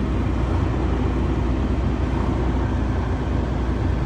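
A vehicle engine idling steadily: an even low rumble with no change in pitch or level.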